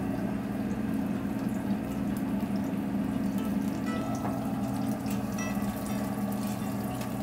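Battered cod deep-frying in a commercial fryer, the oil bubbling and crackling, over a steady low hum of kitchen equipment.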